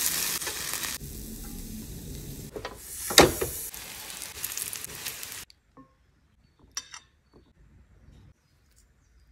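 Chicken breasts and then courgette slices sizzling on the ribbed plate of an electric contact grill, louder at first and quieter after about a second, with a couple of sharp scrapes or knocks of tongs around three seconds in. The sizzle cuts off suddenly about halfway through, leaving only a few faint clicks.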